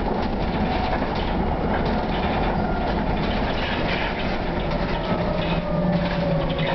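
Ikarus 412 low-floor city bus under way, heard from inside the cabin: steady engine and road noise with light rattling of the interior fittings, and a whine that slowly falls in pitch from about five seconds in.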